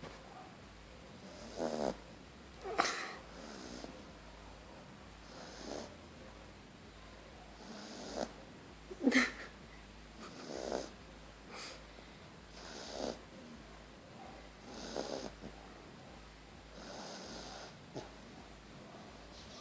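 A sleeping pet snoring: short, irregular snoring breaths every second or two, with a louder snort about halfway through.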